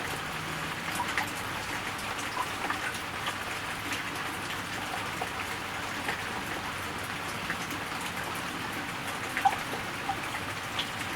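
Steady rain falling, with scattered individual drops ticking on a surface and one sharper drop-hit near the end.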